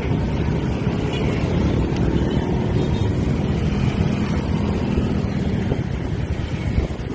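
Steady wind noise on the microphone of a moving bicycle, over the engines of scooters and motorbikes running close by in traffic, with an engine hum standing out in the middle.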